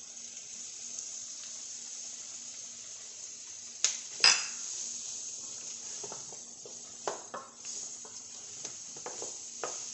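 Vegetables sizzling in a sauté pan while a wooden spoon stirs in a spoonful of flour, a steady frying hiss with sharp knocks of utensil against pan, the two loudest about four seconds in.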